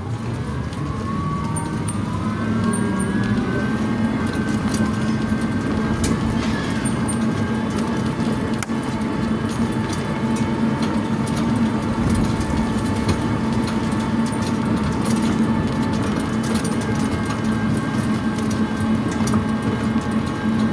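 Electric golf cart's motor whining as it travels, the whine rising in pitch over the first few seconds as it speeds up, then holding steady, with tyre and road noise underneath.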